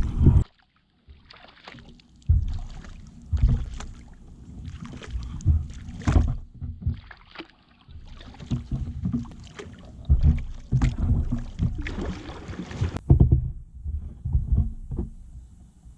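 Kayak paddle strokes: the paddle blades dip and splash into creek water in an irregular series of strokes, about one a second.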